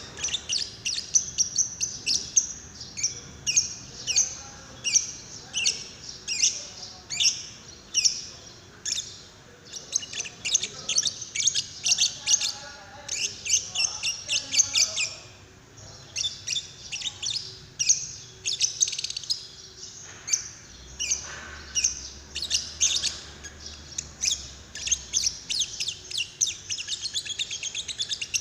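Lovebird chirping in a long run of sharp, high notes several times a second, with a short break about halfway through.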